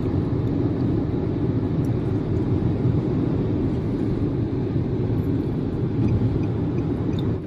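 Steady rumble of a car driving along a road, heard from inside the car: tyre and engine noise with no changes.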